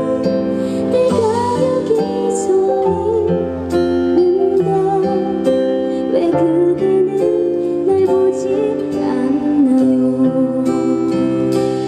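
A woman singing a slow ballad live into a handheld microphone through the stage sound system, her long held notes over a soft instrumental accompaniment.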